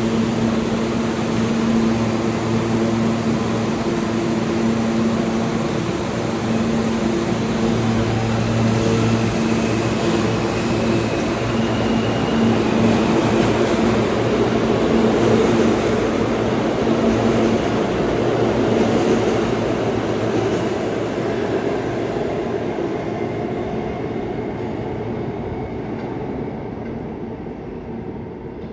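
R160 subway train pulling out of a station: a steady electric motor hum at first, then a faint whine that steps up in pitch as it gathers speed, over a growing rumble of wheels on rail. The sound peaks about halfway through and then fades away as the train leaves.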